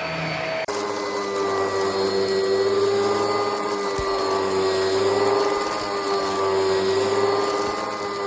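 Oreck commercial upright vacuum cleaner running with a steady motor whine. Less than a second in the sound breaks off for an instant and comes back at a lower pitch that wavers slightly, with a single low knock about halfway through.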